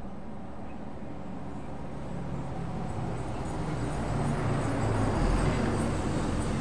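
Heavy multi-axle goods truck's engine and tyres passing close by on the highway: a low engine drone growing steadily louder, loudest about five seconds in.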